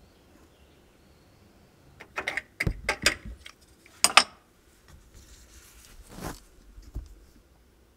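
Light metallic clinks and knocks, a quick cluster of them about two seconds in, followed by a scraping rustle and one soft knock near the end, as metal parts are handled around the engine bay.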